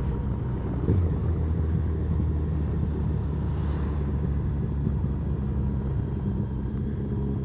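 Touring motorcycle engine running steadily at low speed, heard from on the bike, with a low hum and a haze of wind and road noise.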